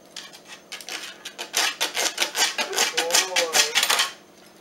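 A dog's front claws scratching fast at the abrasive surface of a Digger Dog nail file board, filing its nails down. It is a rapid run of raspy scratches, light at first, loud from about a second and a half in, and stopping suddenly about four seconds in.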